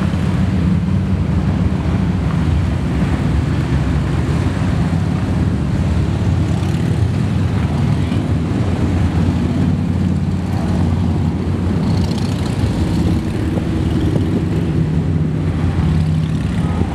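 A long procession of motorcycles and trikes riding past in an unbroken stream, many engines running together as a steady low drone.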